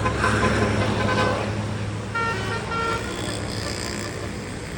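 Tour bus's Basuri 'telolet' multi-tone horn playing a short tune of quick stepped notes about two seconds in, over the bus's engine running, with a rush of noise in the first second or so.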